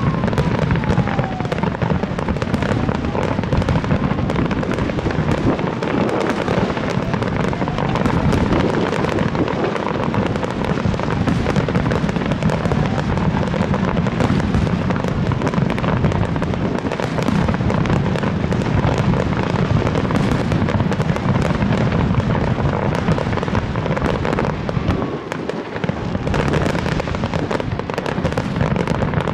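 Aerial fireworks display: a dense, continuous barrage of overlapping bangs and crackling, with faint whistling glides in the first few seconds. It eases briefly about 25 seconds in.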